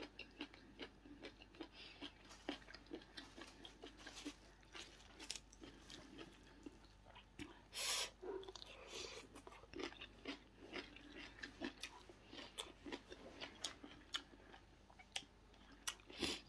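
A person chewing a mouthful of food close to the microphone: soft, quick, wet clicks and small crunches, with a short hiss about eight seconds in.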